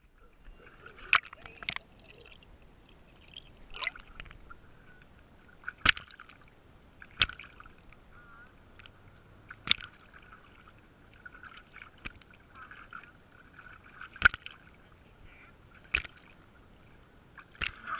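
Water sloshing and splashing around a GoPro camera, with sharp knocks every second or two.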